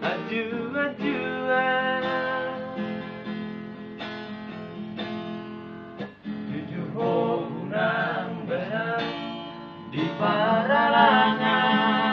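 Men singing together to a strummed acoustic guitar, the voices swelling loudest near the end.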